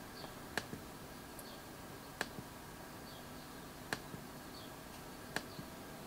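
Four sharp single clicks from an Apple MacBook Pro 13 A1278's keyboard or trackpad, evenly spaced about a second and a half apart.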